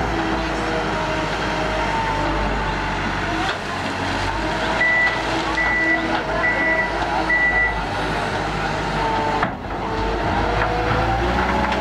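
Komatsu wheel loader's diesel engine running under load, its pitch shifting as it pushes and levels dirt, with four short high beeps of its reversing alarm in the middle.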